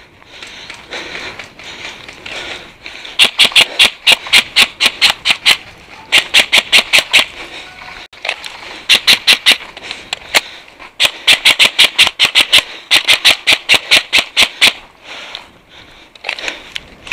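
Airsoft rifle firing five strings of rapid, evenly spaced sharp shots, a few seconds each with short gaps between, stopping a couple of seconds before the end.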